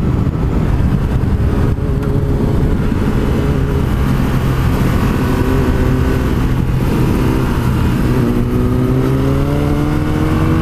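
Yamaha FZ-07's parallel-twin engine running at a steady throttle through the curves, over heavy wind rush on the microphone. Over the last few seconds the engine note climbs steadily as the bike accelerates.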